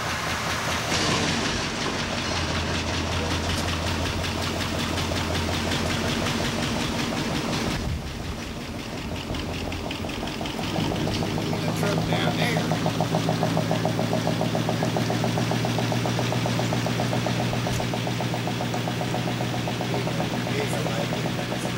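Chevrolet pickup's engine idling steadily. It drops out about eight seconds in, then comes back louder and closer from about eleven seconds.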